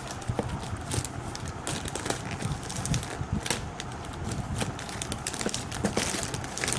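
A shipping package being handled and opened by hand: irregular clicks and crackles of packaging.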